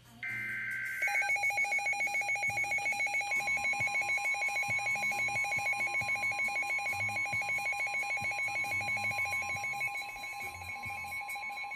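The last Emergency Alert System SAME header data burst, a short high warbling electronic screech, ends about a second in. The EAS attention signal follows, a loud, rapidly pulsing electronic alert tone that lasts about ten seconds. A second, steady tone joins it about three seconds in.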